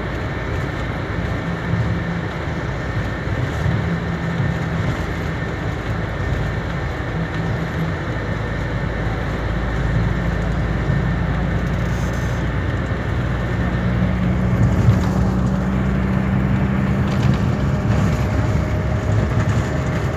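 Intercity coach's engine and road noise inside the passenger cabin while the bus is under way: a steady low drone, with the engine note rising a little in the second half.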